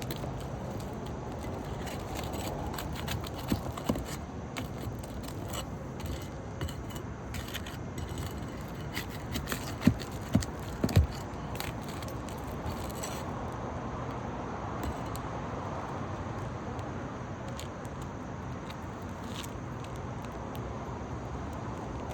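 Scraping and light clicking of asphalt shingles being unsealed and lifted by hand and tool, with three sharp knocks about ten seconds in.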